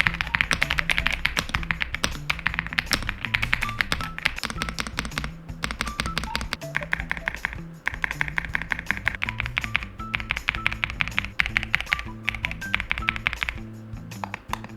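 Rapid typing on an Epomaker Aula F75 75% mechanical keyboard with Crescent switches, a dense run of key clicks with a few short pauses, over background music.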